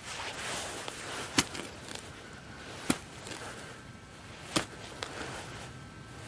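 Spade chopping into soil while digging out a metal-detector target: three sharp chops about a second and a half apart.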